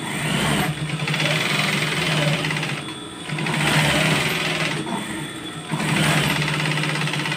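Industrial twin-needle sewing machine stitching in three runs, pausing briefly about three seconds in and again about five seconds in. A steady motor hum sits under the rapid stitching.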